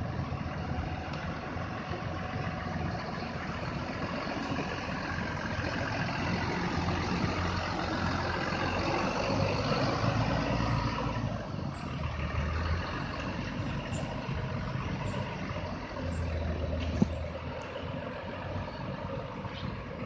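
Diesel coach bus engine running as the bus pulls away and drives off, its sound swelling as the bus passes and then easing. A single brief sharp knock comes near the end.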